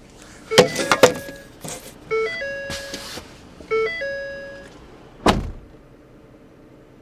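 2013 Ford Police Interceptor Explorer's interior warning chime: a two-note rising chime, repeated about every one and a half seconds, mixed with clicks and knocks as someone settles into the driver's seat. About five seconds in comes a single heavy thud of the driver's door shutting.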